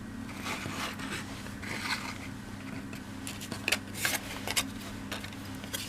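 Laser-cut MDF pieces being handled and fitted together by hand: light scraping and rubbing, then a few small sharp clicks and taps about three to four and a half seconds in. A steady low hum runs underneath.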